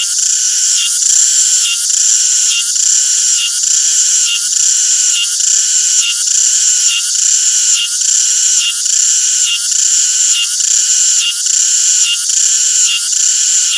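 Cicada chorus, loud and continuous, a high shrill buzz that swells in a steady pulse a little more than once a second.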